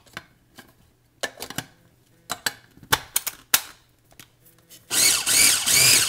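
A series of sharp plastic clicks and knocks from the food processor's lid and bowl being handled, then, near the end, the food processor's motor starts and runs loudly in a pulse, its blade chopping the thick spring onion pesto.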